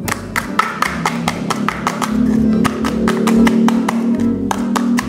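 Music: plucked guitar over a quick, steady tapping beat.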